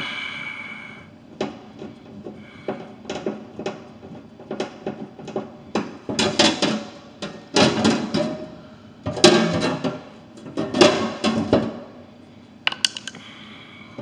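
Metal taps, knocks and scraping from a drinking fountain's metal panel being worked on by hand, with four louder runs of scraping clatter in the second half.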